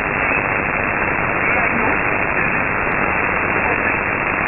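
Shortwave static hiss from an upper-sideband receiver tuned to 5.082 MHz, narrow and muffled, with a faint voice just audible under the noise: a weak transmission from the Polish numbers station E11 'Oblique'.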